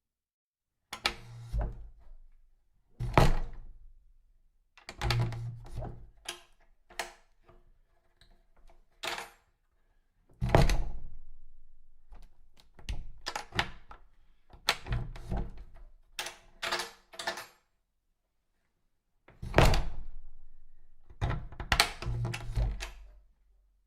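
A series of doors being opened and shut: latch clicks and closing thuds, about a dozen in turn with short pauses between them.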